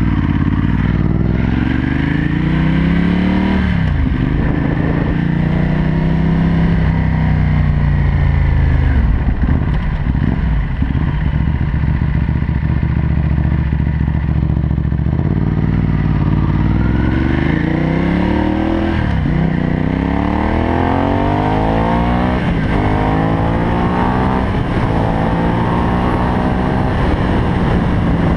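2013 Ducati Hypermotard SP 821's L-twin engine through a Termignoni full race exhaust, ridden hard through the gears: the engine note climbs and drops at each shift several times. It settles to a lower, steadier note around the middle while the bike slows for a corner, then climbs again through two more shifts.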